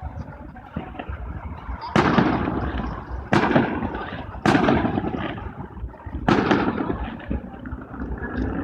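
Fireworks display, aerial shells bursting: four sharp bangs spaced a second or two apart, each trailing off over about a second.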